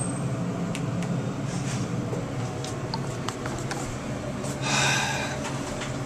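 Elevator car running, a steady low hum with a few light clicks, and a brief rushing hiss about five seconds in.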